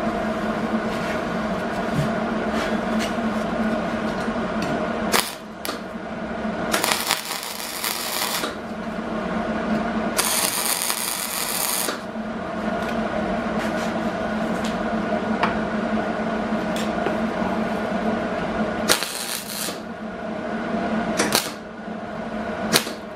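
MIG welder tacking a steel rod onto a truck wheel rim: three bursts of crackling arc, each a second or two long, about a quarter of the way in, near the middle, and again past three-quarters. A steady electrical hum sits underneath, with scattered clicks and taps of metal between the welds.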